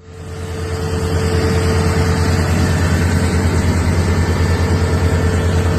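An engine running steadily with a low, rapid pulsing and a steady hum, fading in over about the first second.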